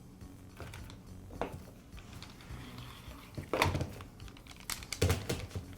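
Light clicks and rattles of the plastic recoil starter and its rope being handled, with a louder clatter a little past halfway and another near the end.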